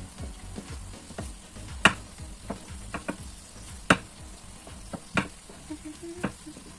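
Pirozhki frying in a pan of hot oil: a faint steady sizzle broken by sharp clicks every second or so, the loudest about two, four and five seconds in.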